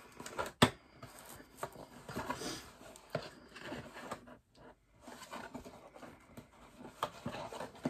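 Packaging being handled by hand: light rustling and scattered small clicks, with one sharp click about half a second in.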